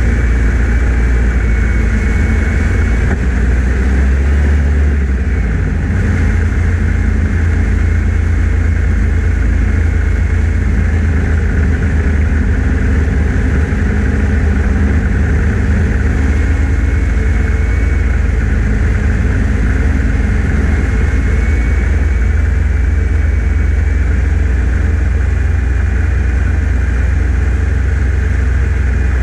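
1989 Yamaha Phazer snowmobile's two-stroke engine running steadily under way, with a steady high whine over a deep rumble.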